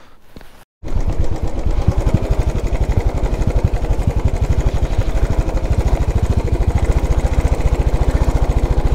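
Royal Enfield Desert Storm's single-cylinder engine running steadily under way, an even, rapid train of firing thuds. It starts abruptly about a second in.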